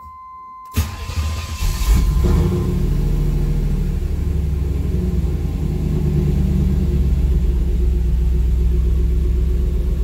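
1992 Chevrolet Camaro Z28's V8 cranked by the starter about a second in, catching within about a second and settling into a steady idle, heard from inside the cabin. It starts promptly right after a new ignition control module was fitted to cure its hard starting and stalling.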